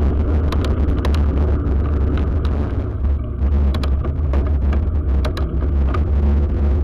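Wind buffeting the microphone of a bike-mounted camera while riding, a loud steady low rumble, with sharp rattles and clicks from the bicycle rolling over paving stones.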